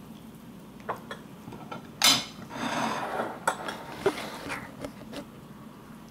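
Metal cutlery clinking and scraping against a ceramic plate and a glass bowl: scattered light clicks, a loud clatter about two seconds in, then a second or so of scraping and more clinks.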